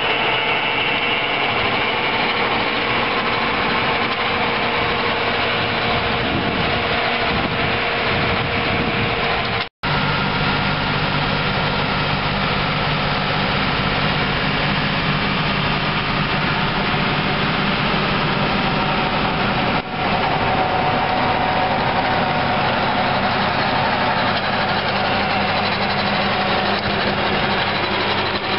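Tractor engine running steadily while a tractor-mounted rotovator (rotary tiller) churns ploughed soil. The sound cuts out for an instant about a third of the way in; after that a deeper steady engine hum is stronger.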